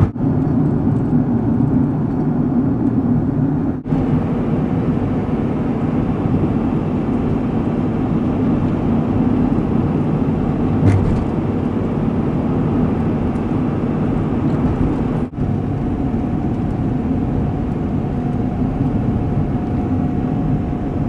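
A van's engine and road noise, a steady rumble while driving. It breaks off abruptly twice, about 4 and 15 seconds in, as one stretch gives way to the next, and a faint steady whine runs through the last few seconds.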